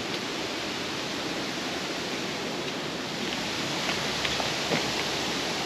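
Steady rushing wind noise with a few faint light clicks a few seconds in.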